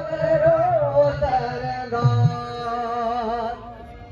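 Live Rajasthani folk music: a man sings a wavering, ornamented melody over drum and instrumental accompaniment. The music dies down near the end.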